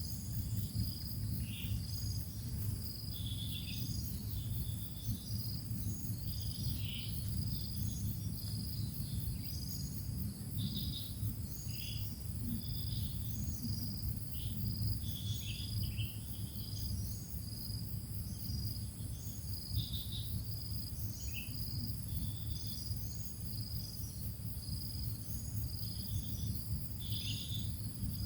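Steady insect trilling with short high chirps scattered throughout, over a constant low hum.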